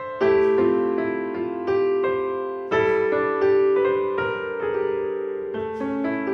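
Piano music: chords struck about once a second and left to ring out, with a melody of shorter notes above them.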